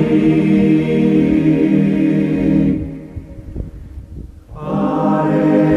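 Choir singing in held chords as background music, breaking off about three seconds in and coming back about a second and a half later.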